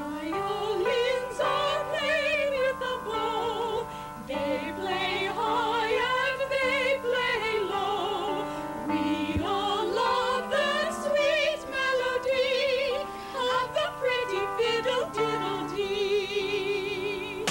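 Live music: a melody with wide, wavering vibrato in an operatic style over steady held chords, starting abruptly.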